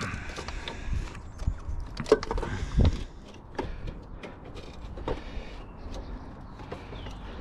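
Irregular knocks, clicks and scraping of an EGR cooler and tools being handled against the engine while it is worked into place. Two louder knocks come about two and three seconds in.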